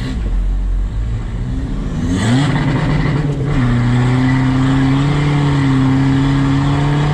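Volkswagen Caddy van's engine under hard acceleration, with an aftermarket exhaust and a remap. The revs climb with a brief break about two seconds in, then settle into a steady, even drone at higher revs for the rest.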